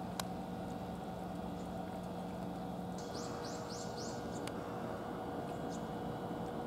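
Cats eating from bowls, with faint, scattered smacking and licking clicks. About three seconds in, a bird gives a quick run of about five short falling chirps.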